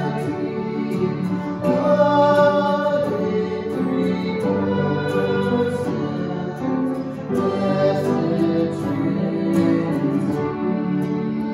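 A worship song sung by a man and a woman together, accompanied by strummed acoustic guitar and upright piano.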